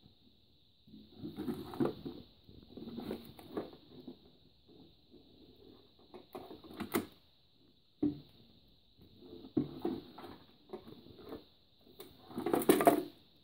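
Scattered knocks, clicks and rustles from the wooden useless box being handled and moved, with the loudest burst near the end, over a faint steady high whine.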